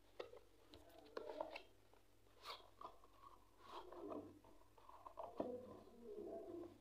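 Faint scraping, rubbing and light taps of a cardboard smartphone box being handled as its lid is slid off the base.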